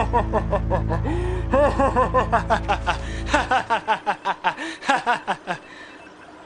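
A cartoon character laughing in a quick run of short, repeated syllables, over a low music drone that stops about three and a half seconds in.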